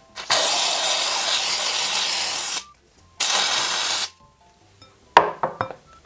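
Aerosol can of shaving foam spraying into a bowl in two hisses, one of about two seconds, then a shorter one of about a second. A few sharp knocks and clicks follow near the end.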